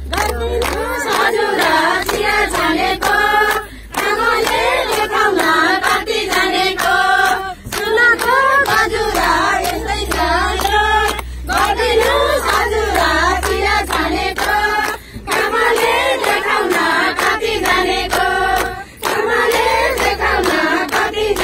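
A group of women singing a song together, clapping their hands in a steady beat.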